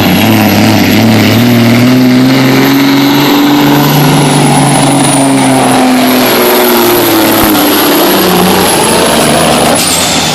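1995 Peterbilt semi truck's diesel engine running hard under load as it pulls the sled, its pitch holding high for several seconds, then dropping away in steps toward the end.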